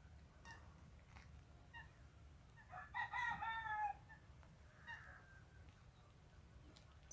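A single drawn-out animal call, a little over a second long and falling slightly in pitch at its end, about three seconds in, with short faint chirps before and after it.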